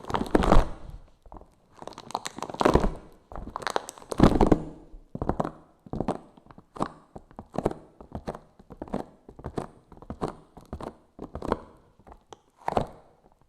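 Close-up ASMR trigger sounds made right on the microphone: crackly, scratchy strokes. They start as long sweeps, then settle into a steady rhythm of about two short strokes a second.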